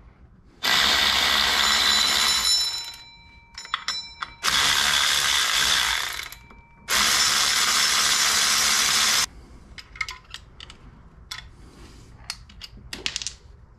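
Handheld power tool running in three long spells of about two seconds each, driving the power steering pump's mounting bolts through the holes in the pump pulley. A few light clicks and knocks follow as the tool and parts are handled.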